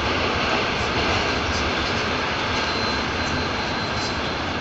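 A Moscow Metro 81-740/741 'Rusich' articulated train running between stations, heard from inside the car as a loud, steady roar of wheels, motors and tunnel noise, with a faint high whine partway through.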